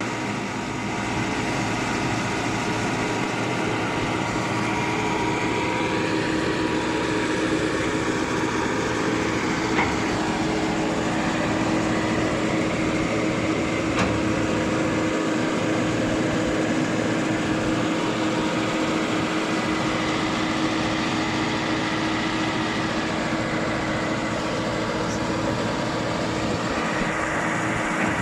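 A construction machine's engine running steadily, powering a hydraulic concrete mixer attachment, with a couple of faint knocks midway.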